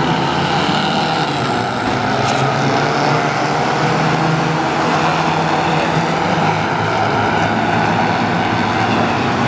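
A pack of ministox stock cars racing together, their small Mini four-cylinder engines running hard in a steady, continuous din.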